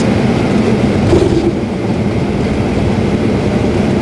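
Jet airliner rolling out on the runway just after touchdown, heard from the cockpit: a loud, steady rumble of engines and the aircraft running along the runway.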